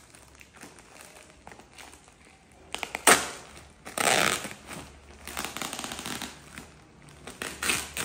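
Plastic courier mailer bag crinkling and tearing as hands pull it open, in a few bursts: a sharp rip a little after three seconds in, a longer, louder one at about four seconds, then rustling to the end.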